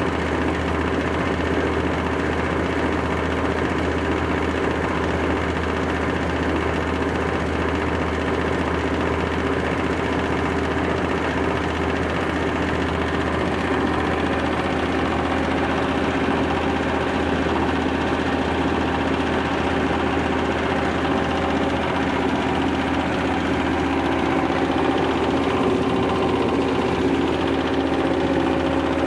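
Rice-husk bran grinding mill running steadily under power, a constant engine-and-grinder drone as it mills husks into fine bran.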